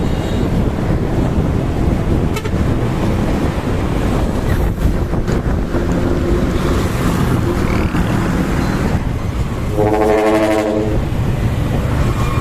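Dump truck's diesel engine running with a steady low rumble; about ten seconds in, a trumpet horn gives one blast of about a second.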